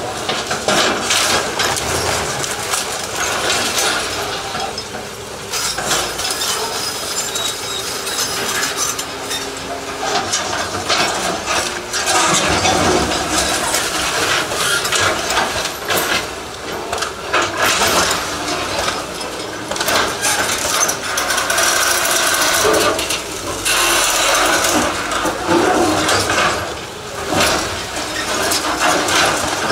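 Doosan hydraulic excavator demolishing a concrete building: the bucket crunches and breaks masonry, with continuous metallic clanking and clattering of falling debris over the running machine.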